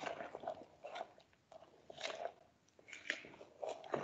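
Spoon stirring a thick flour-and-water papier-mâché paste in a bowl: quiet, irregular wet scraping and squelching strokes as the added water is worked in.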